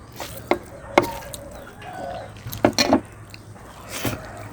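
Crisp food being bitten and crunched close to the microphone: several sharp cracks, with a quick cluster of them about three seconds in.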